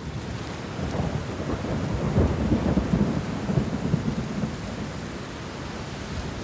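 Thunder rumbling over steady rain. It fades in at the start, is loudest about two to three and a half seconds in, and then eases off.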